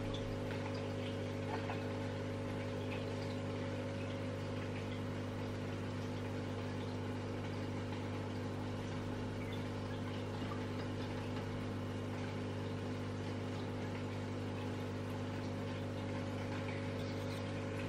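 Aquarium air pump humming steadily, with faint bubbling from the air-driven sponge filter.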